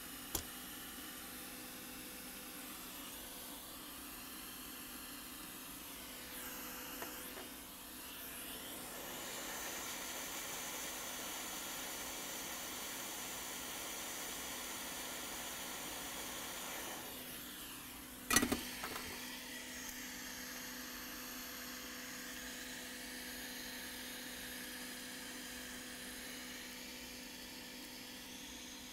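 Hot air rework station blowing a steady hiss of air while a new fuse is soldered onto a logic board, louder from about 8 to 17 seconds in, with slow sweeping changes in tone. A single sharp click about 18 seconds in, over a faint steady hum.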